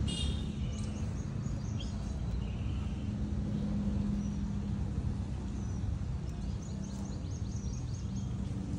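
Outdoor background: a steady low hum, with a few short high chirps just after the start and a quick run of about a dozen chirps near the end.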